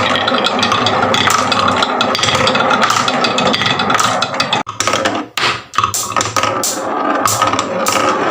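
Marbles rolling and clacking down a wooden marble run: a dense run of small clicks and knocks over a steady hum, broken briefly about halfway, then an even series of sharp clicks about three a second.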